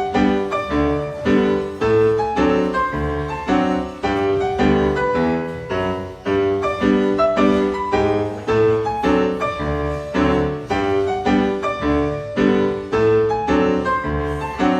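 Cha-cha-cha dance music led by piano, with chords and a bass line on a steady beat.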